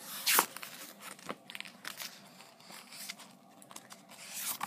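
Paper rustling as the pages of a book are flipped by hand: a sharp swish about a third of a second in, scattered short rustles and ticks, and another swish near the end.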